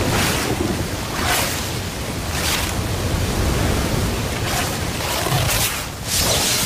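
Loud hissing noise with no tune or voice, swelling several times into brighter whooshes.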